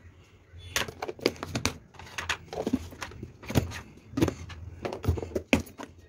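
Plastic food-storage containers and their lids being handled, set down and fitted, giving a series of irregular light clicks and knocks.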